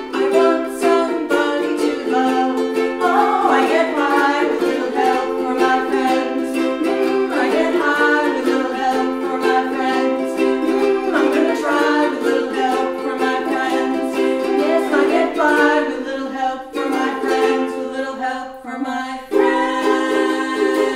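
Two ukuleles strummed together while women sing a duet over the chords. The strumming thins briefly about three-quarters of the way through, then picks up again.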